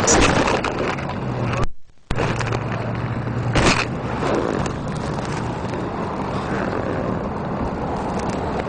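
Steady vehicle running and road noise with a low hum, cut by a short dropout a little under two seconds in and a single sharp knock just before four seconds.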